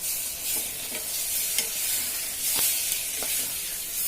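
Washed toor dal and rice sizzling in hot spiced oil in a pressure cooker, with a spoon clicking against the pot several times as it is stirred.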